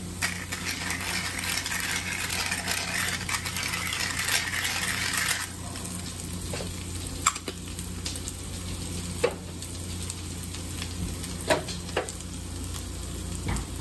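Sea robin roe and onions frying in a pan, with stirring. A loud sizzle drops off suddenly about five seconds in, then a quieter sizzle continues with a few sharp taps of a utensil against the pan.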